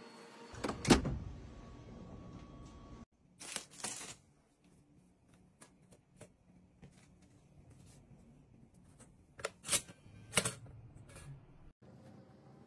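Scattered clicks and knocks from hands handling food and kitchen gear: bread slices set on a metal oven rack, with the loudest knock about a second in, then a tortilla being worked into a toaster's slot, with a few sharp clicks near the middle and again near the end.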